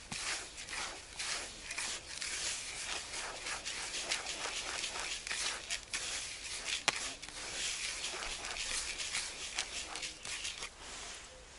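A hand kneading and mixing damp fishing groundbait in a plastic bucket: a continuous gritty rubbing, dotted with many small clicks and crackles.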